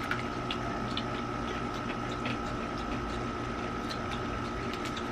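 A steady background hum with a constant high whine. Over it come faint scattered crunches of a corn snack being chewed.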